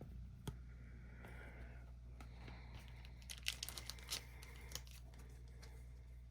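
Trading cards being handled: faint rustling and light clicks of the cards, with a small flurry of clicks about three and a half to five seconds in, over a low steady hum.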